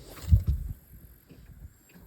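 A fishing cast from a small boat: a brief swish, then a heavy low thump about a third of a second in as the swing bumps the boat and microphone, followed by a few light knocks.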